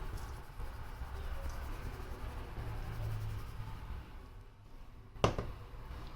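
Faint rustling and handling sounds while seasoning is added to raw chicken, over a low steady hum, with one sharp click about five seconds in.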